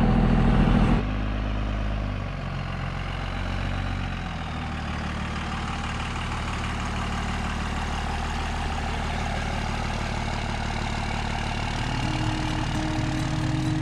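Pickup truck engine running as the truck drives slowly past towing a boat trailer, its note shifting during the first few seconds and then holding steady. Music comes in near the end.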